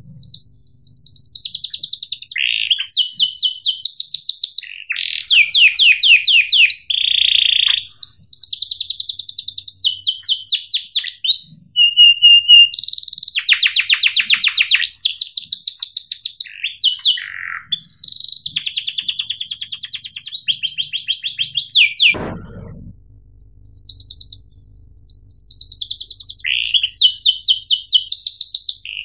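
Domestic canary singing a long, loud song of fast rolling trills and chirps. The song runs in phrases of rapidly repeated notes, each phrase shifting pitch and speed every second or two, with a brief break about three-quarters of the way through.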